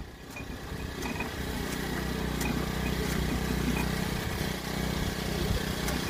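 Small engine running steadily, driving a machine that sugarcane stalks are being fed through; its hum strengthens about a second in, with a few light clicks.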